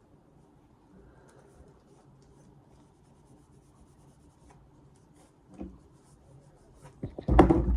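Faint steady rubbing as the carbon-steel axe head is wiped down after its rust has been rinsed off. A single knock comes about five and a half seconds in, and louder handling noise comes near the end.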